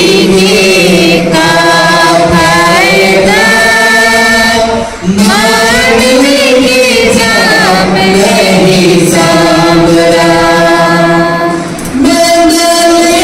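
A man singing a hymn into a microphone through a PA system, with long held notes that slide between pitches and two short breaks for breath, about five and twelve seconds in.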